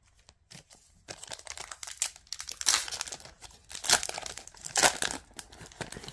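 Trading-card booster pack wrapper crinkling and tearing as it is ripped open and handled: a run of crackly rustles starting about a second in, with the loudest crinkles near the middle and again near the end.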